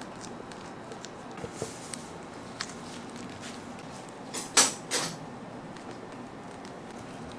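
Handling sounds from gloved hands working inside a plastic-lined stainless steel cake ring: a few faint taps, then two short scuffs about half a second apart, over steady low background noise.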